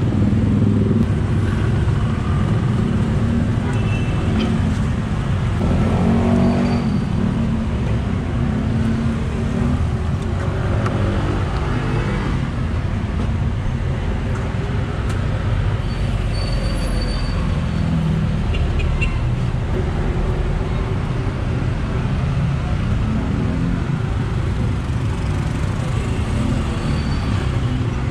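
Steady street traffic noise, a low rumble of passing vehicles' engines, with voices in the background now and then.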